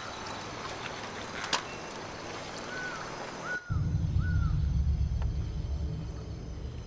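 Outdoor ambience with a steady hiss and three short rising-and-falling bird calls. About halfway through it cuts abruptly to a loud, deep rumble.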